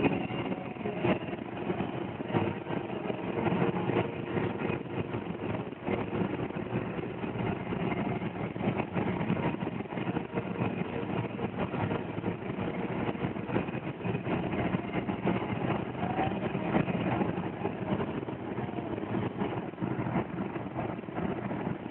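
Car driving at road speed heard from inside the cabin: steady engine and tyre noise with small knocks and rattles throughout.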